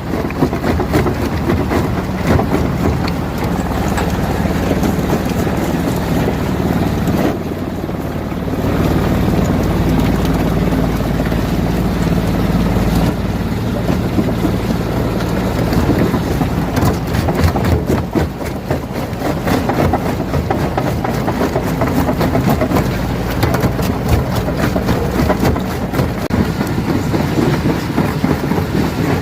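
Rock crusher running: a steady heavy machine drone under dense, irregular cracking and clattering of stone being broken. The sound changes abruptly about 7 seconds in and again about 13 seconds in.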